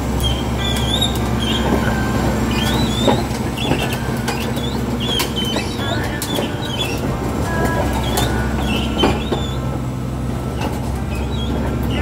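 Komatsu D65P-12 crawler bulldozer's diesel engine running steadily at a low hum, with scattered short high squeaks and a few sharp metallic clicks.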